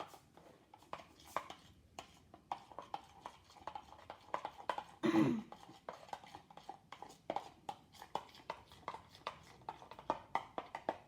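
A mixing tool clicking and tapping against a bowl, several clicks a second, while slime ingredients with dishwashing liquid are stirred. One brief louder sound that falls in pitch comes about five seconds in.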